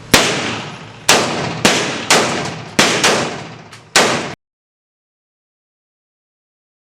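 About six single gunshots, fired one at a time roughly half a second to a second apart, each followed by a long echoing tail in an indoor shooting range. The sound cuts off completely about four seconds in.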